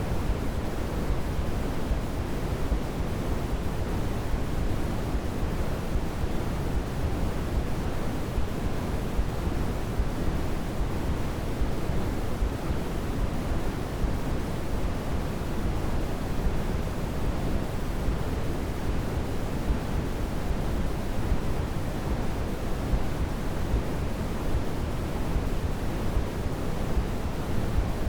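Steady, unchanging synthetic noise of the pink/brown kind, heavier in the low end, like a soft rushing hiss; a baby sleep-aid noise track.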